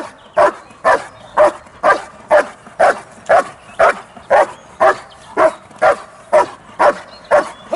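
German Shepherd barking steadily and rhythmically at a helper in a blind, about two loud barks a second, as in the hold-and-bark exercise of protection training; the barking stops near the end.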